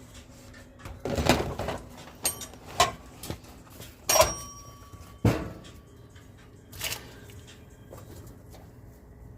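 Chopped broccoli, onion and celery being tipped into a cooking pot. About six knocks and clatters of a container or spoon against the pot, one of them ringing briefly like metal.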